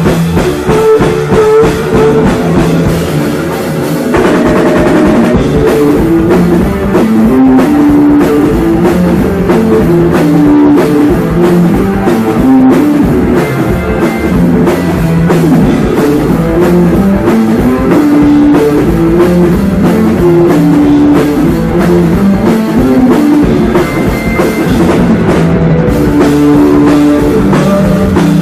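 A rock band playing live and loud: electric guitar over a driving drum kit.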